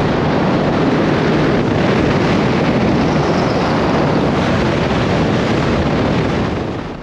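Motorboat running fast at sea: a steady engine drone under a loud rush of wind and water. It eases off near the end.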